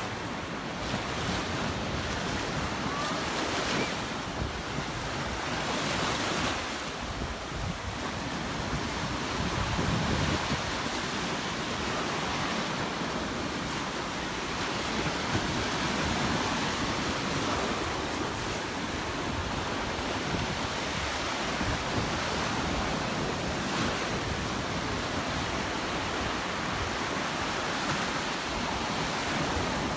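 Gulf of Mexico surf washing onto the beach in steady swells, with wind buffeting the microphone.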